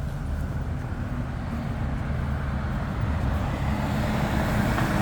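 Road traffic passing on a city street: engine rumble and tyre noise from motor vehicles, growing slowly louder toward the end.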